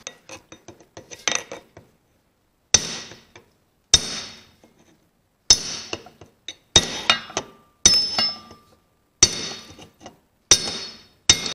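Metal end cap of a driveshaft joint being tapped into place with a brass drift: a few light clicks, then about ten sharp, ringing metallic strikes, roughly a second apart.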